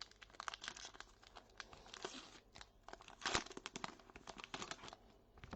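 A trading card pack's wrapper being torn open and crinkled by hand: a run of quick crackles, loudest about three seconds in.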